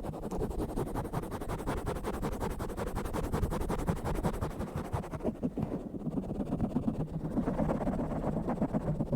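Fingers scratching and rubbing fast and hard directly on a microphone: a dense, rapid run of rough strokes that sounds mostly low and muffled. A little after halfway the hiss drops away for a moment, then the scratching carries on.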